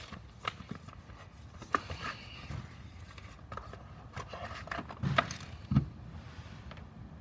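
Handling noise from a cardboard charger box and its contents: scattered clicks, knocks and scrapes, the two loudest knocks a little after five seconds in and near six seconds.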